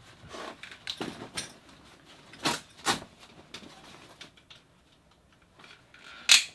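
The frame of a folding portable baby cot being worked at by hand: several clicks and knocks from its joints. Near the end comes one loud, sharp snap that did not sound good.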